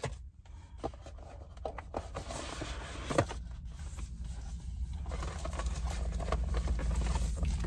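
Cardboard and plastic packaging of a new drone being handled and unpacked: scattered clicks, taps and scrapes as boxes and parts are lifted out, over a low steady hum.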